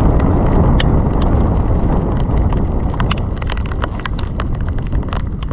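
Wind buffeting the microphone in the rain, with many irregular sharp ticks and clicks on top of the rumble.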